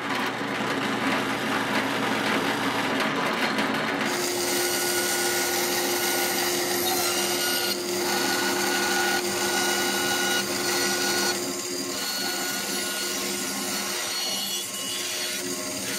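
Drill press boring into plywood to cut a 3/4-inch wooden pivot. About four seconds in, it gives way to a small stationary saw running steadily with a humming tone while plywood is fed through it around a curved line.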